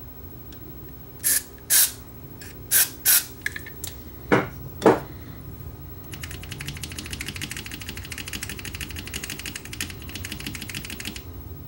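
Aerosol contact cleaner sprayed in about six short bursts through its straw nozzle into the tape selector switch of a Technics RS-676 cassette deck. About six seconds in, a fast, even clicking rattle follows for about five seconds as the switch is worked back and forth to spread the cleaner.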